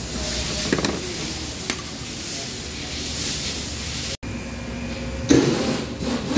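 Workshop background noise with a few light clicks and clinks of oily engine parts and hand tools being handled on a metal bench. There is a brief dropout about four seconds in, and the sound grows louder near the end.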